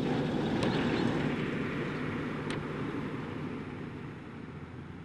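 Heavy truck passing on the road, its engine and tyres a steady low rumble that slowly fades as it drives away, with two short clicks in the first few seconds.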